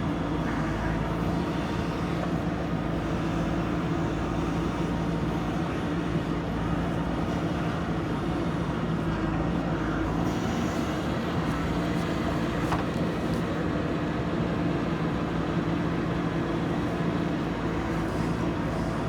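JCB backhoe loader's diesel engine running steadily under load while the machine works soil.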